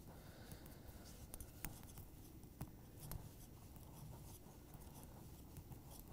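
Faint, scattered clicks of thin metal double-pointed knitting needles as a sock is knitted by hand.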